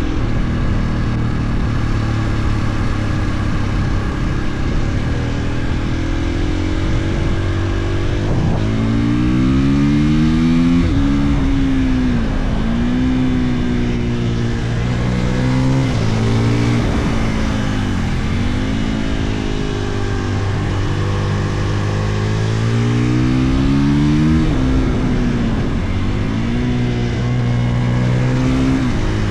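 Husqvarna FE 450's single-cylinder four-stroke engine pulling hard as the bike is ridden. The pitch rises repeatedly under throttle and drops back sharply between pulls, over a steady rush of noise.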